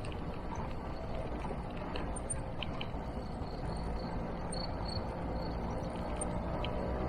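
Motor scooter engine running steadily under rough wind noise on the microphone while riding.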